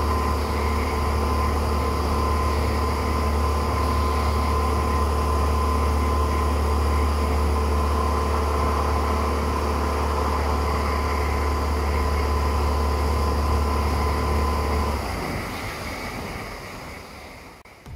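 Honda BF60 four-stroke outboard motor running at a steady cruising speed under a constant rush of wind and water from the boat moving at speed. The sound fades out over the last few seconds.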